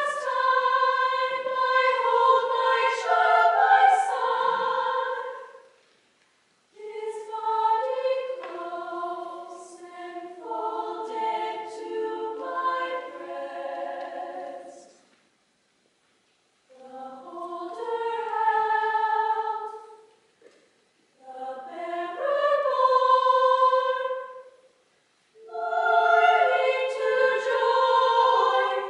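Girls' choir singing unaccompanied in held chords, in about five phrases with brief silences between them.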